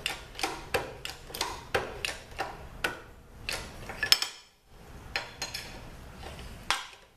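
Shop press pressing a small bushing driver onto a bronze bushing in a transmission input drum hub: a run of sharp metallic clicks, about three a second, with one louder click a little after four seconds in.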